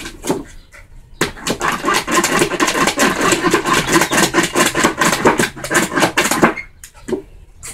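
A dog lapping water from a bowl in quick, rhythmic laps, starting about a second in and stopping near the end, drinking the bowl empty.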